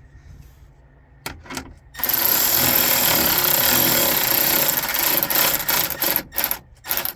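Power drill-driver running steadily for about four seconds as it drives a screw into an interior trim piece, then a few short bursts as the screw is snugged down.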